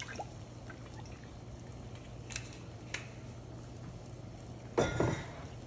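Water at a rolling boil in a wide pan, bubbling steadily, with a few faint clicks and a brief louder noise near the end.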